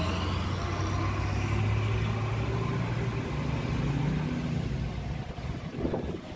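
Isuzu FTR truck's diesel engine running as the truck rolls slowly forward. Its note rises a little about three to four seconds in, then eases off.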